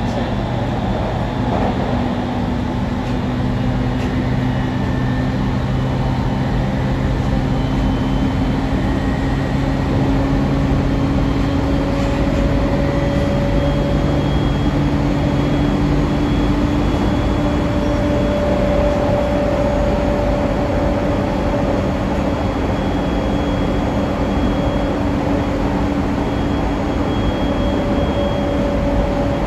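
Running sound inside a JR 701 series electric train car in motion: a steady rumble of the wheels on the rails, with the traction motors' hum slowly rising in pitch through the first half before fading under the rumble.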